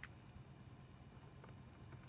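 Near silence: a low steady room hum, with a faint click at the very start and a weaker one about one and a half seconds in.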